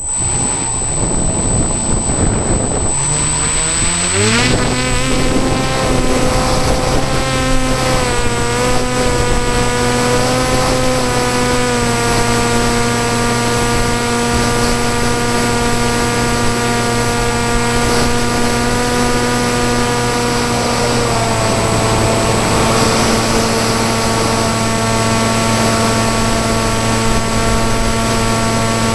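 Electric motor and propeller of a PopWing RC flying wing, rising in pitch as the throttle opens about four seconds in, then running steadily at high speed over rushing wind noise. The pitch steps down slightly about twenty seconds in as the throttle eases.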